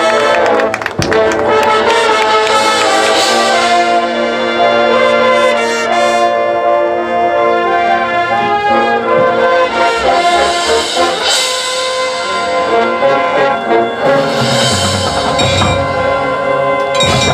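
Marching band's brass section playing loud, held chords, with low percussion joining in over the last few seconds.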